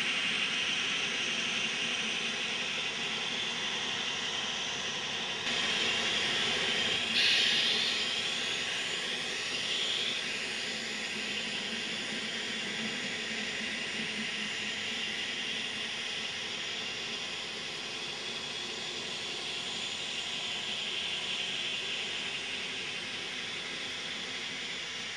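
N scale model passenger train running along the track: a steady whirring hiss from the small motor and wheels rolling on the rails, louder for a few seconds from about six seconds in.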